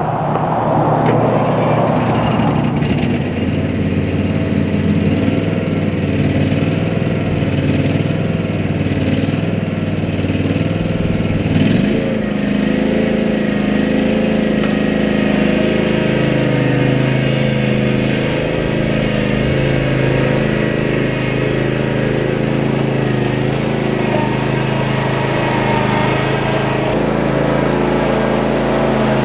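Cub Cadet Ultima ZT1 zero-turn mower's engine running steadily, with a brief change in engine pitch about twelve seconds in.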